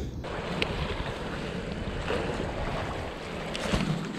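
Wind buffeting the microphone over the wash of sea waves against a tetrapod breakwater, with a few light clicks.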